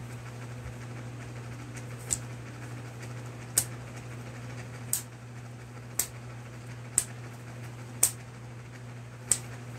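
Seven short, sharp clicks or taps, spaced about a second apart, over a steady low hum.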